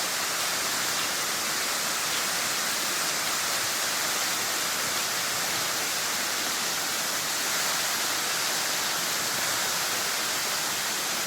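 Steady rush of falling water from Bambarakanda Falls, Sri Lanka's tallest waterfall, running low with little water out of season.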